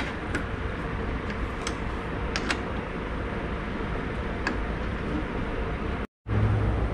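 A few sharp metallic clicks and taps from hand-adjusting a lathe's four-jaw chuck with its chuck key, over a steady workshop hum. The sound cuts out for an instant near the end, and a deeper hum follows.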